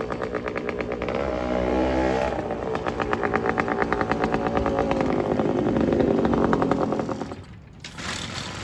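Moped's Minarelli V1 single-cylinder two-stroke engine running just after starting, revved up and eased off twice. Near the end the sound dips suddenly and then picks up again.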